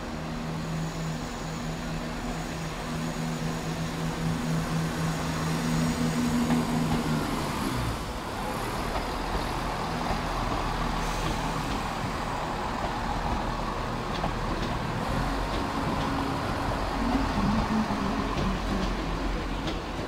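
ScotRail Class 170 Turbostar diesel multiple unit moving past, its underfloor diesel engines droning with wheel and rail noise. The engine note holds steady at first, then changes about eight seconds in as the train draws near and the rumble grows.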